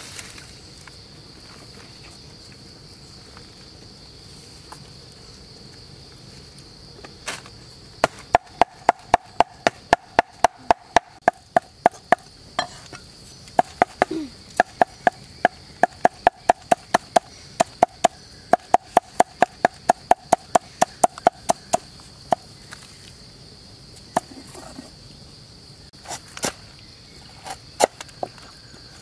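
Large knife mincing fish flesh on a wooden cutting board: after a quiet start, a long run of quick, even chops about three a second, then a few separate cuts near the end. A steady high insect drone runs underneath.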